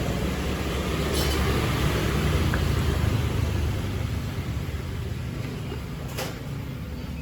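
A motor vehicle rumbling past, swelling over the first few seconds and then slowly fading, with a sharp click near the end.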